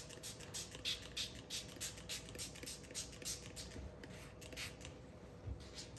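Paper towel scrubbing a stain on an upholstery fabric swatch: faint, quick rubbing strokes, a few a second.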